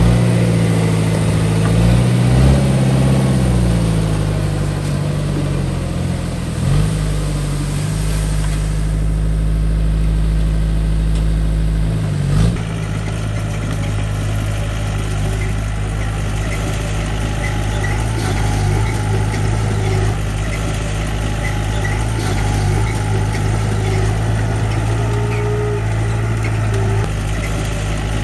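Heavy construction machine's engine running: its pitch rises and falls a few times in the first seven seconds, then holds steady. A single knock comes about twelve seconds in.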